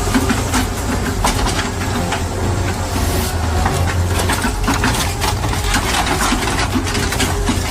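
A heavy machine running: a steady low engine rumble with rapid, irregular clattering and knocking over it.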